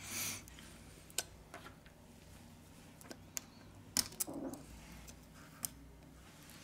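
Faint small clicks and ticks of a plastic pry tool and circuit board against a Sony Xperia M2's metal frame as the motherboard is eased out, with a short rustle at the start and a soft scrape after the loudest click, about four seconds in.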